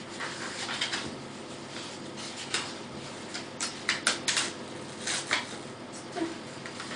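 Pages of a paper journal being leafed through: irregular soft rustles and flicks of paper, with a quick run of sharper flicks about three to four seconds in.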